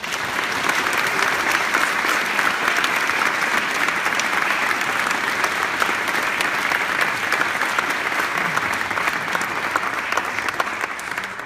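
Audience applauding: dense, steady clapping from many hands that starts abruptly and fades out near the end.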